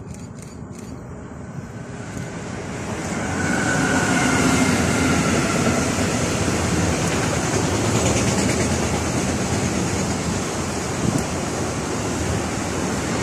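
Electric freight train hauling container wagons, approaching and passing: a rising rumble that reaches its loudest about four seconds in as the locomotive goes by, then a steady roll of wheels on rail as the long string of container wagons passes.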